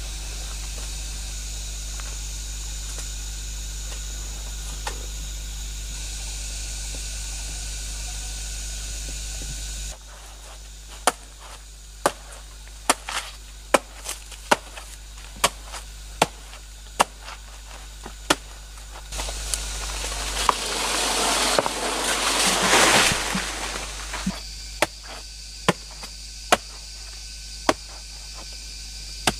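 Machete chopping into a soft, fleshy plant stem: a run of sharp strikes, a little over one a second, after about ten seconds of steady forest background. About two-thirds in, a loud rustling swell lasts a few seconds, and then the strikes start again.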